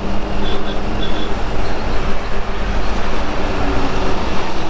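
Truck engine running steadily under road rumble, heard from inside the cab while driving.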